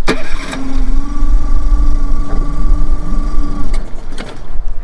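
Honda four-stroke outboard motor on an inflatable dinghy running at idle just after starting, with a steady engine note. There is a click at the very start, and the steady note drops away near the end.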